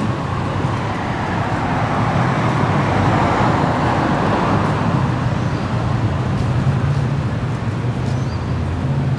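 Road traffic noise from the adjacent road: a vehicle passes, its tyre and engine noise swelling to its loudest about three to four seconds in and then fading, over a steady low hum.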